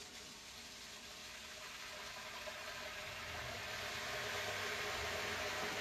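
Hot water pouring from a wall-mounted faucet into a utility sink, a steady splashing hiss that grows louder in the second half as the tap is opened further.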